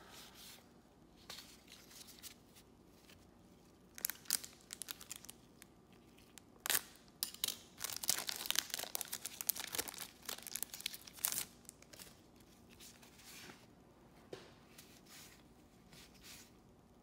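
Trading cards rustling and sliding against each other as blue nitrile-gloved hands shuffle through them, in scattered bursts, with a dense stretch of crinkling from about eight to eleven seconds in.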